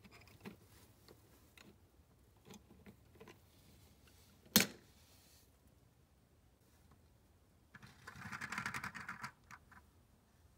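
Plastic Lego pieces being handled on a baseplate: scattered faint clicks, one sharp plastic clack about four and a half seconds in as the Lego tree topples over, and a rattling plastic clatter for about a second and a half near the end.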